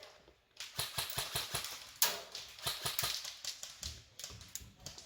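Airsoft guns firing: sharp clicking shots, some in quick runs and some single, through most of the stretch.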